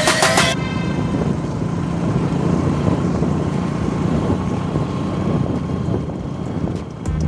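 Hero motorcycle's engine running as it rides along, with wind rushing over the microphone. Background music cuts off about half a second in.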